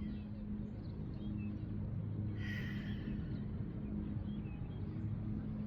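Outdoor park ambience: a steady low hum, with a few faint short chirps and a brief hiss about two and a half seconds in.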